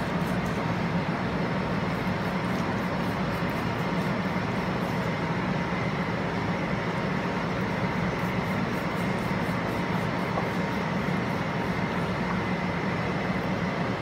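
Steady low mechanical drone and hiss of a running appliance such as an air conditioner, with faint scratchy ticks from a knife sawing slits through raw pork skin in two stretches.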